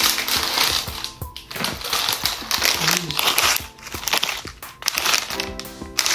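Plastic packaging of a building-brick set crinkling and rustling as it is handled and opened, in irregular bursts with brief pauses. Background music plays along with it.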